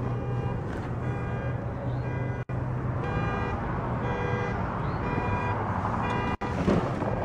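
A car's warning chime sounds over and over, about once a second, while the door stands open. Beneath it runs a steady low hum.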